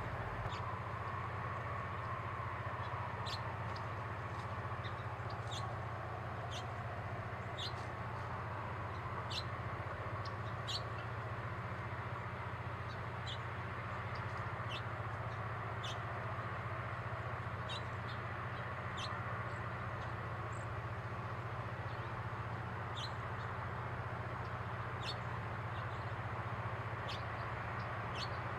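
Female house finch giving short, sharp, high chirp calls one at a time, every second or two, over a steady low background rumble.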